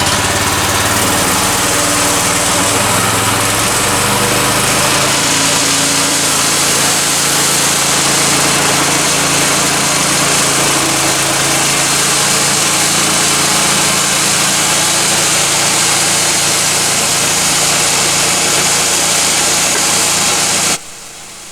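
The gasoline engine of a Woodland Mills HM126 portable sawmill running steadily just after being started, its note shifting a few seconds in. The sound cuts off suddenly near the end.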